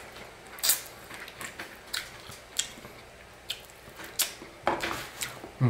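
Close-up mouth sounds of chewing a bite of fried chicken coated in a hard tanghulu sugar shell: scattered crackly crunches, a few in the first seconds and busier near the end.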